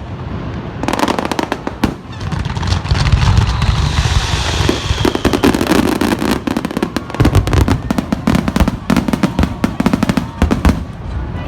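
Fireworks display: a rapid barrage of shell bursts and crackling, with deep booms about two seconds in and again about seven seconds in.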